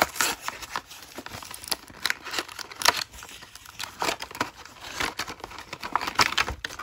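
Clear plastic blister pack of a diecast toy car being flexed and pried apart by hand, crinkling and crackling with irregular sharp snaps and clicks; the loudest snap comes about three seconds in.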